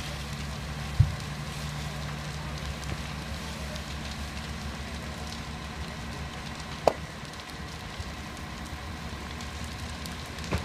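A fully involved house fire burning, with two sharp pops, the louder about a second in and another near seven seconds. A steady low engine hum runs underneath.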